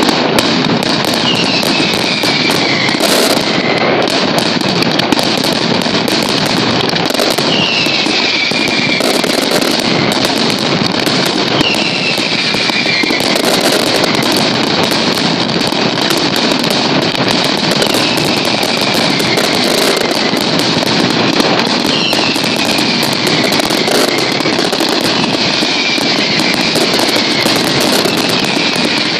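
Mascletà firecrackers: long strings of firecrackers going off in a dense, continuous, loud rattle. Short falling whistles cut through it every few seconds.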